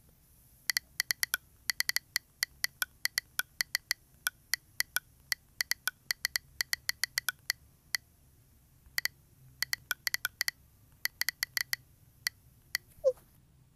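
Key-tap clicks from a smartphone's on-screen keyboard as a message is typed, coming in quick runs of several taps a second with short pauses between them. Near the end, a short rising blip: the chat app's message-sent sound.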